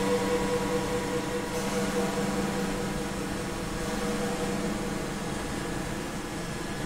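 A quiet droning passage in a black metal recording: several sustained low tones held under a noisy hiss, slowly fading.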